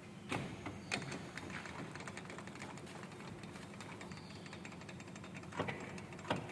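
Metal-turning lathe running with a steady low hum and a rapid, light mechanical ticking, with a few louder knocks about a second in and near the end.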